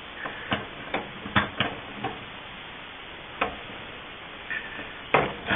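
Scattered light clicks and taps, about eight at irregular intervals, from handling at a sink faucet as its tight screw-off part is worked loose.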